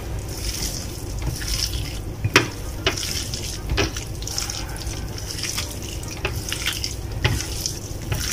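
A hand mixing oyster mushroom strips with beaten egg and spices on a plate: wet squelching, with a few sharp clicks scattered through.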